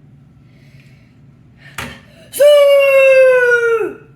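A child's long, high-pitched scream of excitement, lasting about a second and a half, its pitch sagging at the end. A short sharp noise comes just before it.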